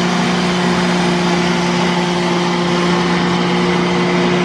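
Countertop blender motor running on high, whirring a jar of liquid (coffee substitute, maple syrup and half and half) into foam. It is loud and holds one steady pitch.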